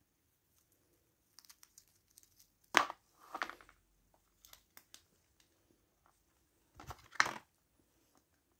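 Dry rustling and crinkling of a cardboard box and carrot toy handled by a baby angora rabbit, with scattered small clicks and two louder brief scrapes, about three and seven seconds in.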